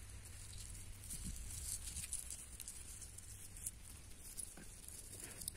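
Faint scrapes and small patters of dry soil and clods shifting under a hand as garlic cloves are pressed one by one into a furrow.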